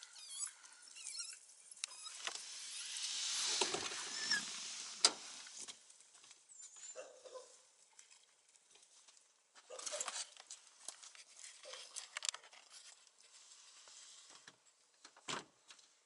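African painted dogs giving high-pitched twittering calls that trail off about a second in. Then a rushing noise swells and fades over about three seconds, with a sharp click as it dies away, followed by scattered light clicks and rustles.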